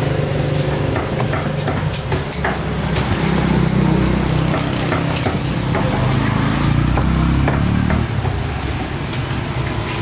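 Knife clicking and scraping as it cuts through a tuna on a wooden block, over busy market noise with a low rumble that swells through the middle.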